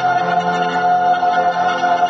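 Mixed school chorus holding a long, steady chord.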